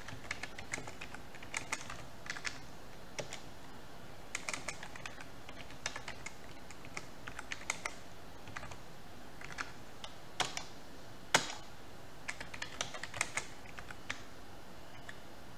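Typing on a computer keyboard: irregular keystroke clicks in short runs with pauses between them, and two louder key strikes about two-thirds of the way through.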